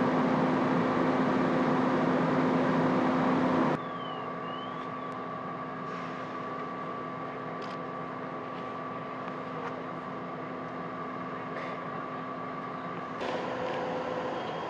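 A fire engine's diesel engine running steadily, a constant drone with a steady hum. It drops suddenly to a quieter level about four seconds in and comes back up near the end.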